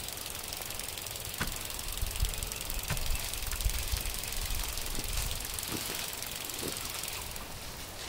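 Quiet outdoor ambience: an irregular low rumble with a few faint clicks.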